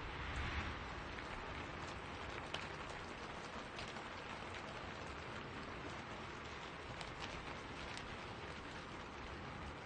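Steady rain falling through spruce trees, an even hiss with scattered sharper drop hits close by. A brief swell, like a gust of wind, comes in the first second.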